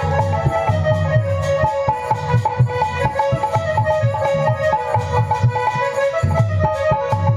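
Devotional folk music: a harmonium plays a held, reedy melody over a steady, repeating drum rhythm.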